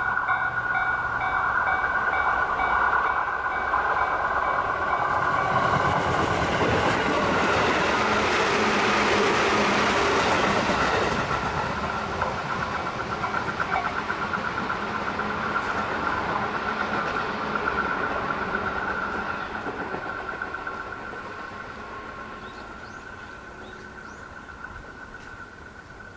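Railway level-crossing warning bell ringing in a steady repeating ding while a JR Hachikō Line train passes, its wheels clattering over the rail joints. The train noise swells about five seconds in, is loudest around ten seconds in, then fades, leaving the bell ringing.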